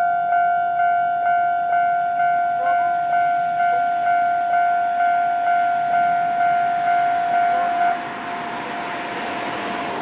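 Japanese railway level-crossing warning bell: an electronic ding repeating about twice a second, which stops abruptly about eight seconds in. A rising rush of passing-vehicle noise follows.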